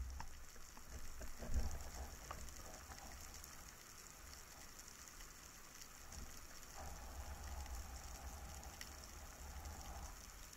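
Faint underwater ambience: scattered soft crackling ticks over a low steady drone. A faint steady hum comes in about seven seconds in and stops near the end.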